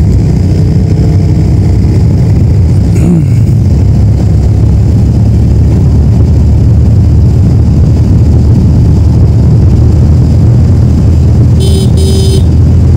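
TVS Metro Plus 110 cc single-cylinder engine running at a steady cruise, heard as a helmet-mounted mic catches it, with heavy low wind rumble. Near the end, two short horn beeps.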